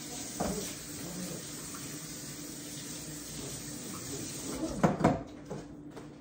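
Kitchen faucet running into the sink while dishes are rinsed, with a knock about half a second in and two loud clatters of dishes about five seconds in; the running water stops soon after.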